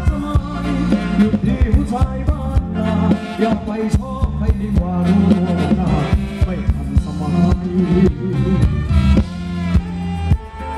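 Live band playing Thai ramwong dance music, with a steady drum beat and heavy bass under a melodic lead.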